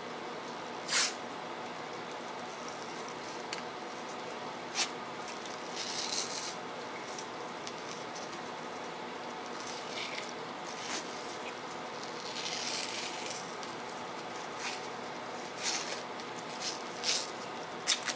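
White athletic tape being pulled off the roll, torn and smoothed onto a wrist: a scattered series of short rasping rips and rubs, a couple of them longer, over steady room noise.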